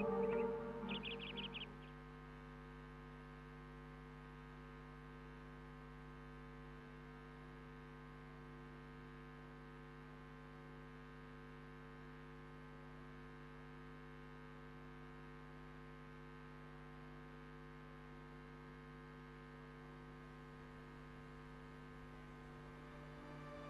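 Steady electrical mains hum, a constant stack of even tones with no change. A tail of music fades out in the first two seconds.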